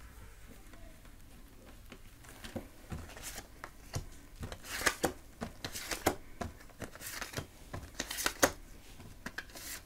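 Oracle cards being drawn from a spread deck and laid down on a table: a series of quick swishes, slides and light taps of card on card and card on tabletop, starting a couple of seconds in and loudest near the end.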